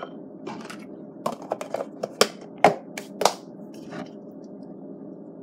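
A scatter of light clicks and taps of food and kitchenware being handled, the three loudest between about two and three and a half seconds in, over a steady low hum.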